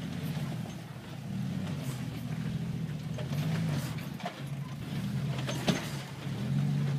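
Jeep Wrangler YJ engine at low revs, swelling and easing in pulses as the throttle is feathered while the Jeep crawls up a rock ledge. A single sharp knock comes a little past two-thirds of the way through.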